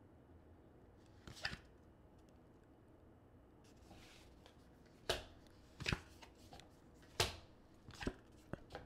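Tarot cards being drawn and laid down: about six short card swishes and slaps, a faint one about a second in and the rest from about five seconds on, with near silence between.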